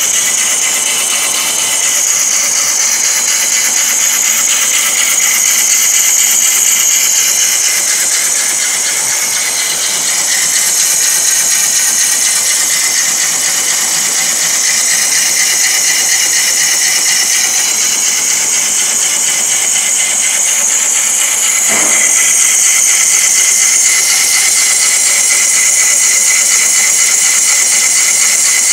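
CNC wood lathe turning a large wooden cylinder, its cutter shaving chips off the spinning blank: a loud, steady, high-pitched cutting noise over the running machine, with one brief knock about three quarters of the way through.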